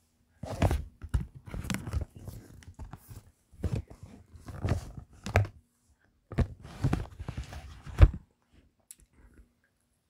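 Rustling and crunching noises in three bursts of about two seconds each, ending in a sharp knock about eight seconds in, followed by a few faint clicks.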